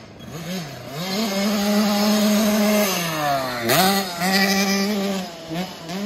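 Small 50cc two-stroke kids' dirt bike engine revving as it rides the track: the pitch climbs and holds high, falls away about three seconds in as the throttle is shut, then rises sharply and holds again with short dips.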